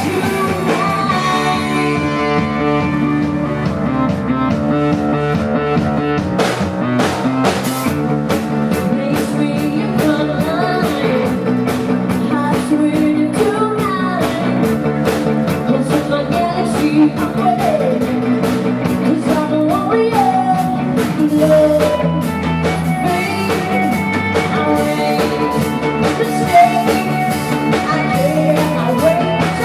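Live rock band playing a song: singing over electric guitar, with drums coming in about six seconds in.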